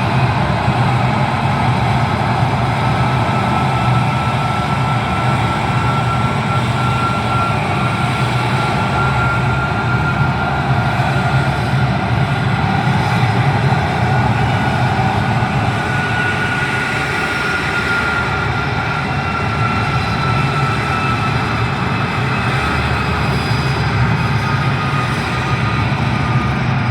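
A vehicle engine running steadily under way, with a faint high whine that drifts slightly up and down in pitch.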